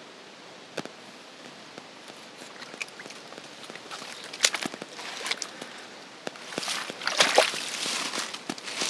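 Footsteps and rustling in dry fallen leaves, with scattered small clicks. The rustling grows louder over the last few seconds.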